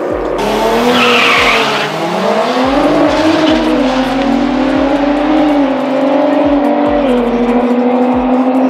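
Turbocharged B58 straight-six of an xDrive-converted BMW M140i drag car launching hard, with a short tyre squeal about a second in. The engine note then climbs and drops in steps at the gear changes as the car pulls away down the strip.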